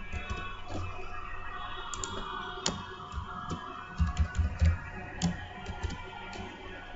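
Typing on a computer keyboard: scattered key clicks, with a quick run of several firmer keystrokes about four seconds in.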